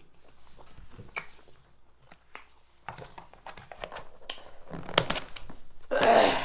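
Thin clear plastic lid being pressed down onto a takeout food container, crinkling and clicking, with a sharp snap about five seconds in and a louder crackling burst near the end.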